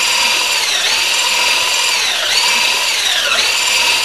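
Handheld electric mixer whirring at speed as it beats eggs and sugar until frothy, its high whine sagging in pitch and recovering about three times.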